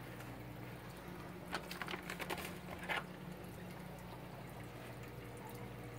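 Aquarium room background: a steady electrical hum with faint moving water from the tanks' filtration. A short run of light clicks and rustles comes between about one and a half and three seconds in.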